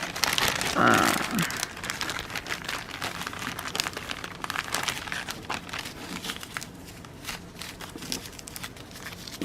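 Packaging crinkling and rustling in irregular crackles as it is handled, with a short bit of voice about a second in.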